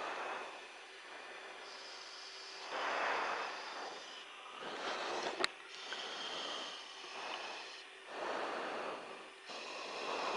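Breathing into a headset microphone: repeated breaths every two to three seconds over a faint steady hum, with one sharp click about five seconds in.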